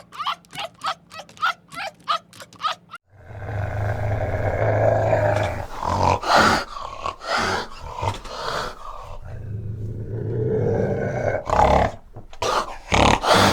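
An animal giving short pitched calls, about three a second, then, after an abrupt cut about three seconds in, loud, rough growling and roaring calls.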